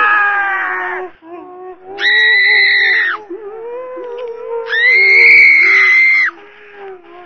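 Several voices wailing and sobbing together, overlapping and wavering, with two long, steady, high-pitched screams about two seconds in and about five seconds in.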